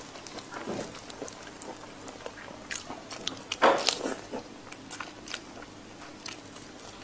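Close-miked eating sounds from a person biting and sucking on a shrimp coated in chili sauce: small wet clicks and crunches, with a louder sucking, smacking run about three and a half seconds in.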